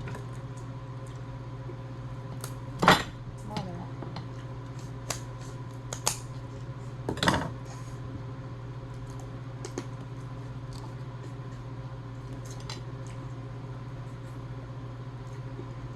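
Scattered clicks and clinks of cutlery and dishes at a meal, with two louder knocks about 3 and 7 seconds in, over a steady low hum.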